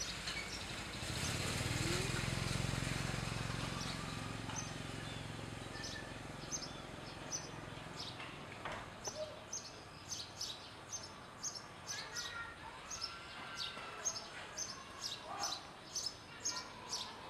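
A motor vehicle passes, its low engine hum swelling and fading within the first four seconds. Then small birds chirp, short high chirps coming about two or three a second, with a few lower whistled calls.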